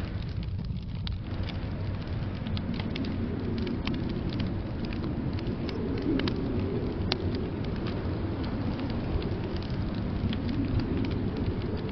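Wood fire crackling in a fireplace, with scattered sharp pops and ticks, over a steady low rush of blizzard wind that swells a little now and then.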